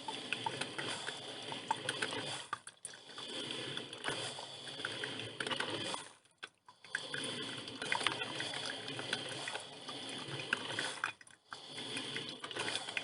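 Drip filter coffee machine brewing: water gurgling and sputtering through the heater with crackling clicks, in long stretches broken by a few short pauses.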